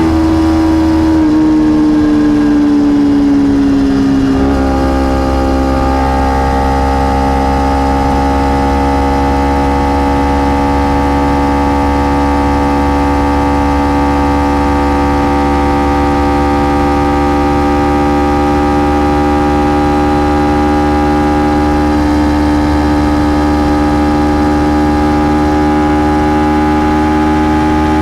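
Kawasaki Ninja 300's parallel-twin engine running through its stock exhaust while riding. The note falls for the first few seconds, changes abruptly about four seconds in, then holds a steady drone that rises slowly.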